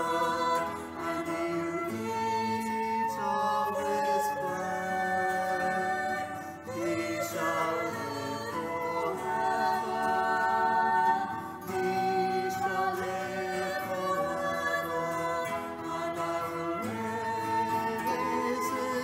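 Voices singing a slow hymn in long held notes, the chord changing every second or two.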